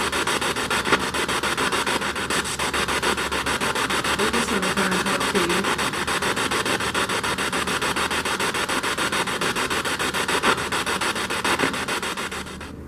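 Spirit box scanning through radio stations: a steady hiss of static chopped by fast, even ticking, with brief snatches of broadcast voices. It cuts off suddenly near the end.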